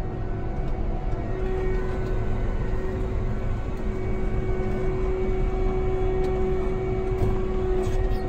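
Miller 7310 self-propelled sprayer running in the field, heard from inside its cab: a steady engine rumble, joined about a second in by a steady whine that holds.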